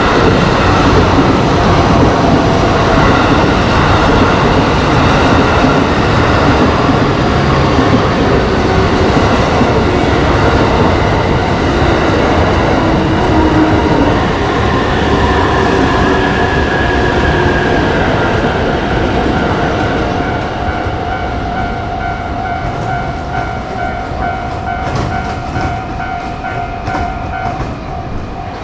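A JR Joban Line train passing a level crossing, its loud running and wheel-on-rail noise slowly fading through the second half. As the train noise drops, the crossing warning bell comes through, ringing in a steady run of evenly spaced dings.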